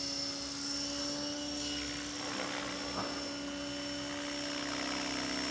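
Align T-Rex 600 radio-controlled model helicopter in flight, running steadily: an even hum with a thin, high whine above it.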